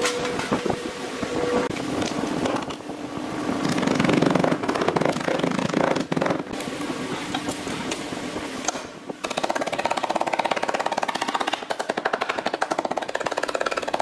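Workshop tool noise on a car body shell. From about nine seconds in, a handheld air hammer (pneumatic chisel) works the body's sheet metal in a rapid, even run of strokes.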